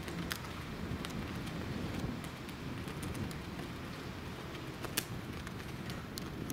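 Wind buffeting the microphone in an uneven low rumble, with scattered sharp ticks, the most prominent about five seconds in.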